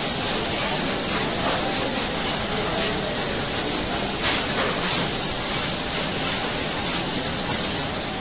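Automatic camera-module plate machine (pick-and-place) running: a steady machinery hiss with a few short hissing puffs, around four and five seconds in and again near the end.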